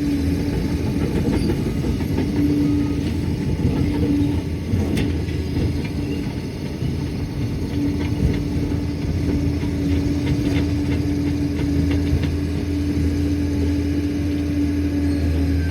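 Liebherr 746 crawler dozer working, its diesel engine running steadily with a low rumble. A held mid-pitched tone comes and goes over it, with scattered light clicks.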